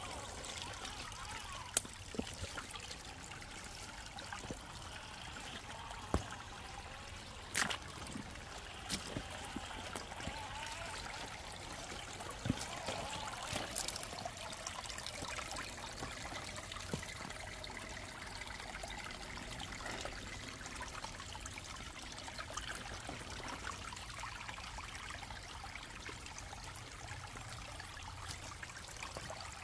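Shallow creek water trickling steadily over rocks, with a few sharp clicks scattered through it.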